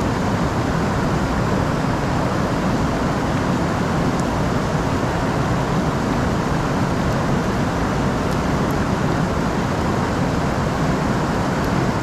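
Steady rush of a shallow river running over rocks, loud enough that the lock's pin clicks can't be heard over it.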